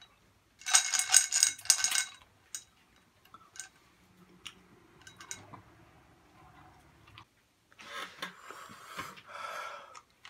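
Wrapped Warheads hard candies rattling and clinking against a glass as it is handled, loudest in a burst about a second in. Scattered small clicks follow, then a rustle near the end.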